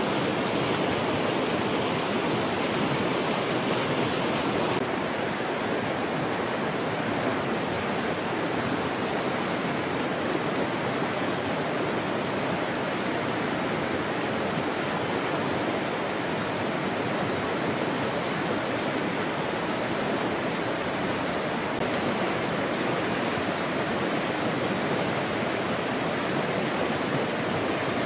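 Shallow river running over stones, a steady rushing of water.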